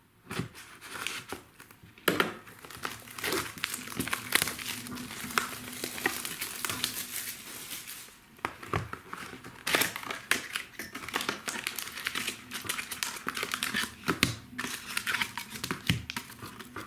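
Plastic shrink-wrap on sealed hockey card boxes crinkling and tearing as it is pulled off by hand, a dense crackle of small snaps, in two stretches with a short pause about eight seconds in.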